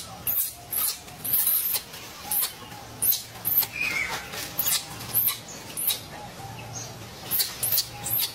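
Shrill animal squeaks in short bursts, coming irregularly about twice a second.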